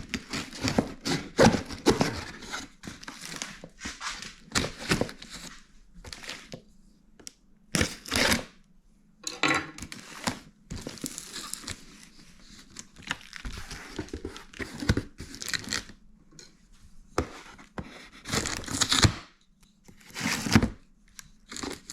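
A shipping package being torn open by hand: irregular rips of tape and paper and crinkling of packing material, in uneven strokes with short pauses between them.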